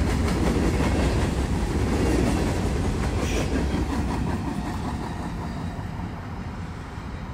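Freight train's covered hopper cars rolling past at close range, the wheels rumbling and clicking on the rails. The sound fades steadily as the last car goes by and the train pulls away.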